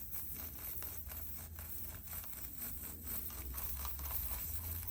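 Tire plug kit's rasp tool being worked in and out of a nail puncture in a tire to ream and smooth the hole for the plug: a run of short, irregular scrapes and clicks over a low steady hum.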